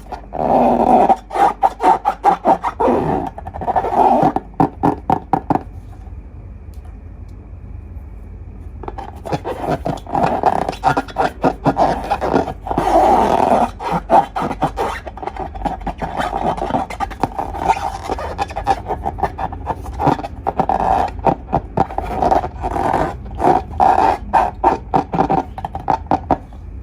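Rapid squelching and squeaking as slime and long balloons are squeezed and handled, in dense quick bursts that pause for about three seconds just after the first quarter, then resume.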